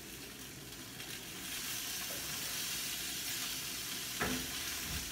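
Mackerel frying in oil in a lidded wok: a steady sizzle that grows stronger about a second and a half in, the fish nearly done. One short knock sounds near the end.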